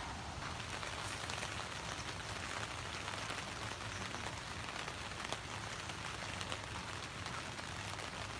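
Steady rain falling, a soft hiss dotted with many small drop ticks.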